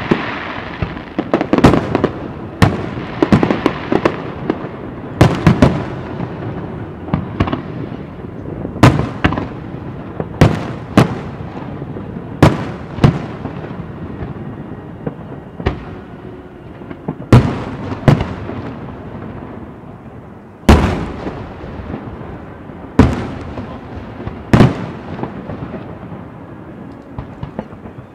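Aerial firework shells bursting one after another at irregular intervals, roughly twenty sharp bangs, each trailing off in echo, over a continuous background rumble.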